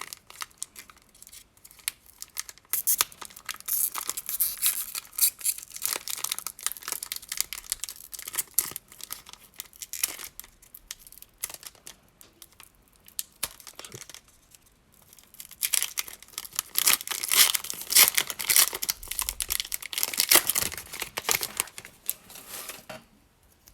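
Foil booster-pack wrapper being torn open and crinkled in irregular crackling bursts, loudest in a long stretch near the end.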